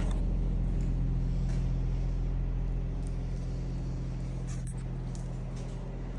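A steady low machine hum, slowly fading, with a few faint clicks.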